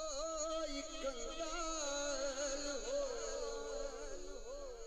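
A solo male voice reciting a naat, an Urdu devotional poem, sung as one long held phrase with a wavering, ornamented pitch that sinks slightly towards the end.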